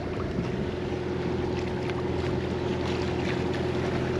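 Sailboat's engine running steadily as the yacht motors along, a constant hum under the rush of wind and water.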